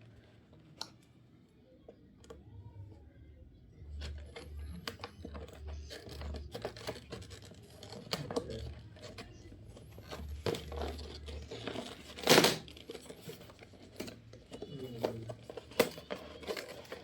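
Headphone packaging being opened by hand: scattered rustling, crinkling and clicks of cardboard and plastic with dull handling bumps, and one loud tear about twelve seconds in.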